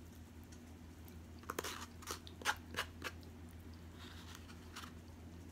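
Close-up eating sounds: a person chewing a mouthful of red beans and rice, with a cluster of short smacks and clicks between about one and a half and three seconds in and a few fainter ones near the end.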